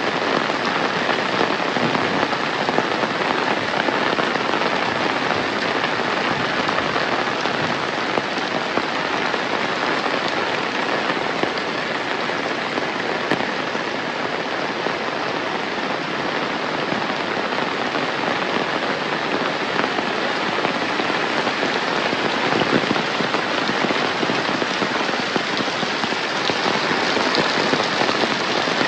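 Heavy rain falling steadily: a dense, even hiss with scattered louder drops.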